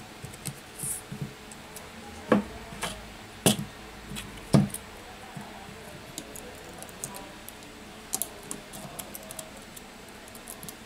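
Small sharp clicks and taps from handling the parts of an opened iPhone 6: three louder clicks in the first half, then a scatter of faint ticks.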